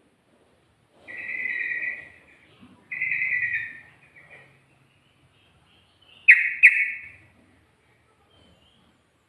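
Yellow-vented bulbul (trucukan) singing: two drawn-out whistled phrases, then a louder phrase a few seconds later that starts with two sharp clicks.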